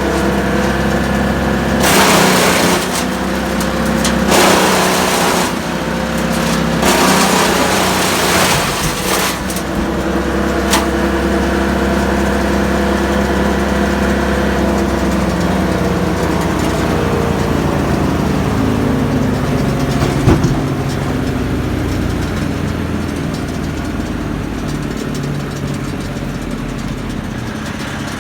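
An engine running steadily, with three loud bursts of noise in the first ten seconds, then slowly dropping in pitch and level.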